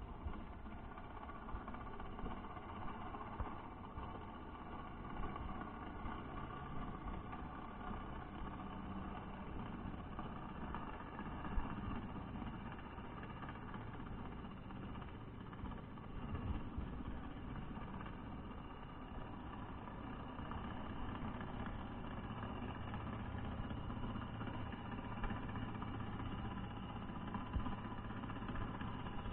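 A steady low engine-like hum picked up by a camera underwater, with a single faint knock about a third of the way through.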